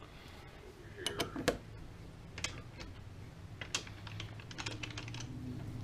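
Scattered light metallic clicks and knocks as a workpiece is handled at a mini lathe: taken out of the chuck, turned end for end and refitted. A faint steady low hum runs underneath.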